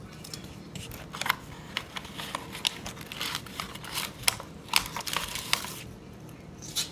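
Plastic cracker packet crinkling as it is handled, an irregular run of sharp crackles that is thickest in the middle and thins out near the end.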